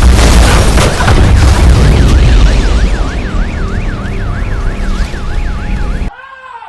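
A loud, deep rumbling boom with a siren warbling quickly up and down over it, about three swings a second, all cut off abruptly near the end.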